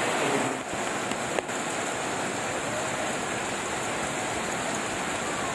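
Steady, fairly heavy rain falling.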